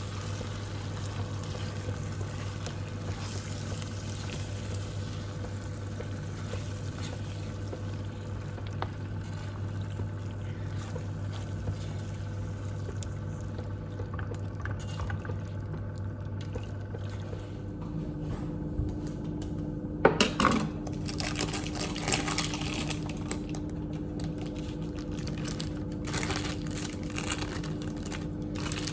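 Food simmering in a sour-cream sauce in a frying pan, with a steady bubbling hiss. About two-thirds of the way through, the background hum changes and a run of clicks and rustling handling noises follows.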